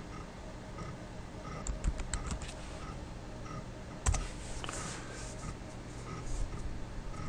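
MacBook Pro keyboard being typed on: a few short runs of keystrokes, with one sharper, louder click about four seconds in.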